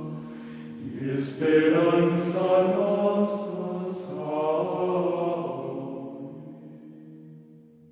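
Slow, low choral chant: several voices hold long notes, with four short hissed 's' sounds in the first half. It fades away over the last few seconds.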